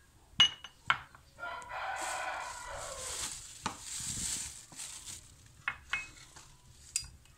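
A rooster crows in the background, one call of about two seconds that drops in pitch at the end. Over it, a clear plastic bag rustles as paprika powder is shaken from it onto raw chicken wings, with a few sharp clicks and taps, the loudest soon after the start.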